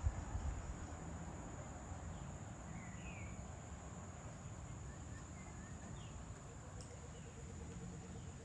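Insects trilling steadily at a high pitch over a low rumble, with a few brief bird chirps about three and six seconds in. A single thump right at the start.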